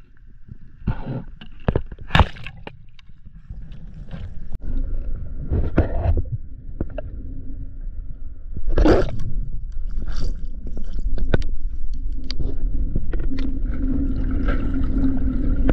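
Underwater sound picked up by a diver's camera in its housing: scattered sharp clicks and knocks and bubbly water noise, with a louder rush about nine seconds in. A low steady hum sets in during the last few seconds.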